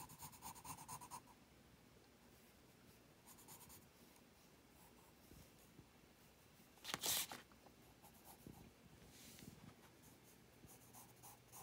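Faint scratching of a pencil sketching on paper in quick strokes, with one louder scrape about seven seconds in.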